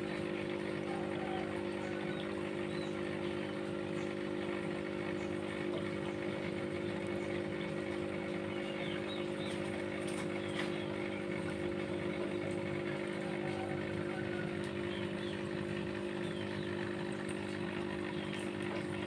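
Steady electric hum of aquarium pump motors running, even and unchanging throughout.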